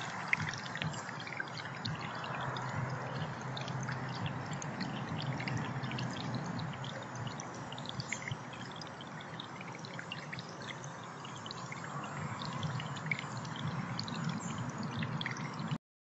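Small birdbath fountain running: a steady gurgle of water with many small drips and splashes falling back into the basin.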